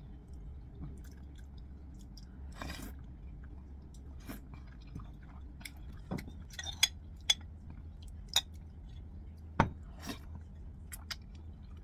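Chewing on soft agar jelly strips in soy milk, with a metal spoon clicking against a ceramic bowl several times, the sharpest taps in the second half.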